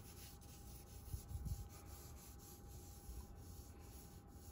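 Vine charcoal stick drawn on its side across drawing paper with very light pressure, a faint scratchy rubbing in repeated short strokes while laying in a background tone. A soft low bump comes about a second in.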